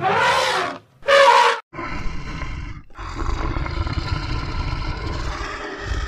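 An animal's roaring calls: two short, loud calls in the first second and a half, then a long, lower, rough rumbling call lasting about four seconds.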